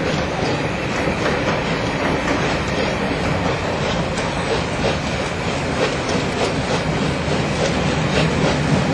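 Passenger coaches of a steam-hauled train rolling past close by: a steady rumble of wheels on rails with repeated clicks.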